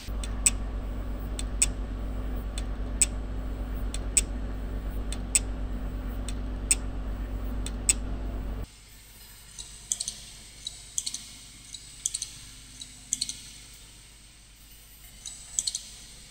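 Recordings of hard disk drives after drop tests. First a spinning drive hums steadily and gives a sharp click about once a second, the repeated head click typical of a drive damaged by the drop. About nine seconds in, it switches to a second, quieter drive that gives faint, irregular ticks and clicks.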